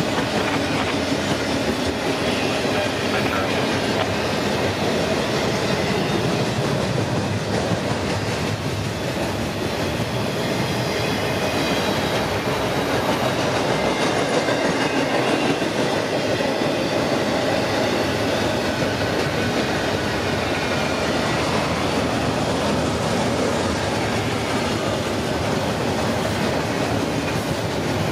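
Double-stack intermodal train of container-laden well cars rolling past: a steady rumble and clatter of steel wheels on rail.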